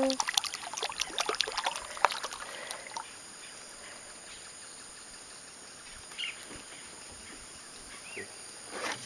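A fish bait dipped and slapped against the water surface by hand makes a quick, irregular run of splashes and clicks for about the first three seconds. Then comes a quiet open-air background, with two short faint chirps later on.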